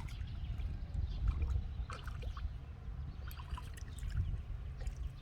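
Light splashing and trickling of pond water at the surface, in short scattered bits, over a low steady rumble.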